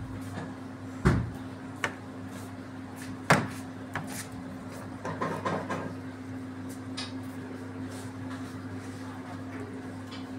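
Kitchen clatter at a steel food counter: a few sharp knocks in the first four seconds, then a brief run of lighter clatter, over a steady low hum.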